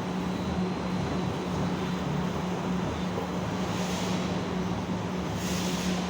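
A machine tool running steadily during a cone-machining job, with a constant low hum and a noisy mechanical wash. Brief hissing rises come about four seconds in and again near the end.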